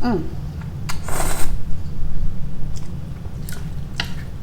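Close-up eating sounds of seafood ramen: a short noisy slurp about a second in, then chewing with a few wet mouth clicks, over a steady low hum.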